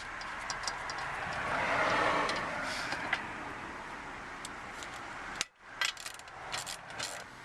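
A vehicle passing by, its noise swelling to a peak about two seconds in and then fading. Scattered light clicks come from small plastic parts being pushed into place in the seat back.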